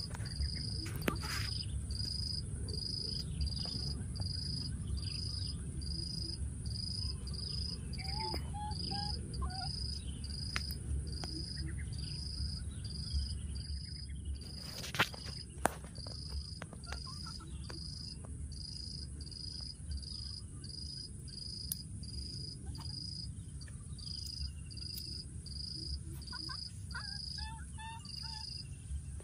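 Insects chirping in an even, high-pitched pulse, about three chirps every two seconds, over a steady high insect drone.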